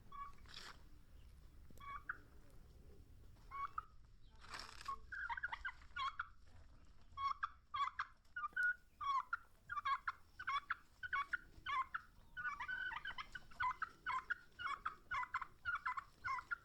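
Poultry calling in a rapid, repeated chatter that grows thick and continuous about five seconds in, with a short rush of noise just before.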